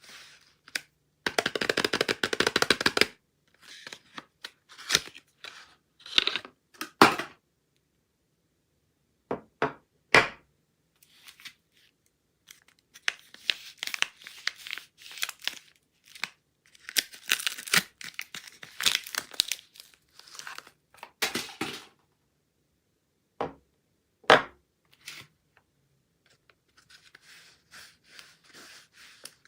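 Soap bars being unwrapped: packaging tearing and crinkling in irregular bursts, with sharp clicks and taps in between and short pauses.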